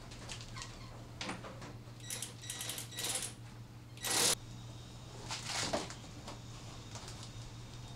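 Clicks and short clatter of car body parts being handled and fitted: a run of quick clicks about two seconds in, a brief harsh scrape-like clatter about four seconds in, the loudest sound, and another near six seconds. A steady low hum lies underneath.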